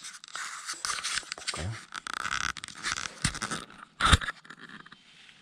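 Soil being scraped and dug away to uncover a small wild ginseng root, an irregular run of scratching and scraping, with one sharp knock about four seconds in.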